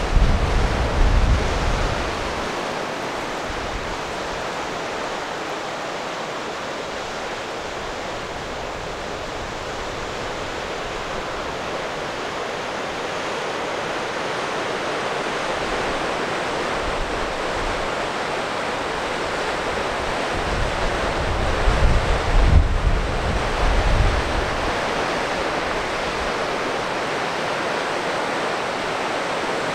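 River rushing over rapids: a steady wash of water noise that rises slightly in the second half. Wind buffets the microphone in low gusts for the first two seconds and again about three-quarters of the way through.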